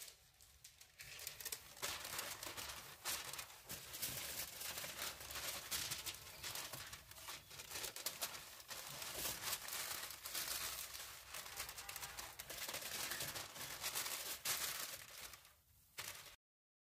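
Aluminium foil being crinkled and folded by hand, a dense crackling rustle that starts about a second in and dies away shortly before the end.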